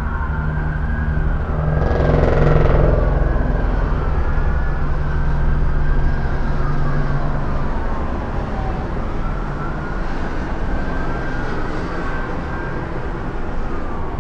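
Several police sirens wailing at once, their rising and falling tones overlapping, over a steady low rumble of vehicle engines, with a louder rush of noise about two seconds in.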